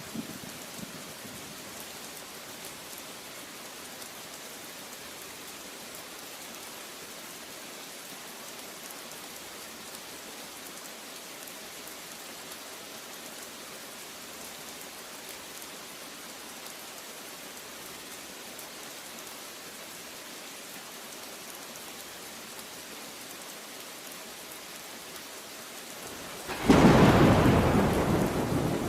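Steady heavy rain falling, then a loud crack of thunder near the end whose rumble slowly dies away under the rain.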